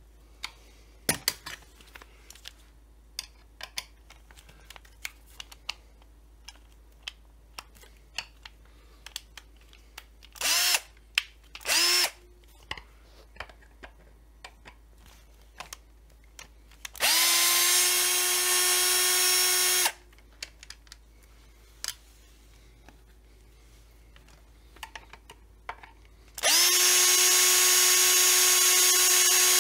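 Hand-held power drill running in short spells, driving screws on a chainsaw's housing: two brief whirs, then two steady runs of about three seconds each, each starting with a quick rise as the motor spins up. Light clicks and taps of handling come between the runs.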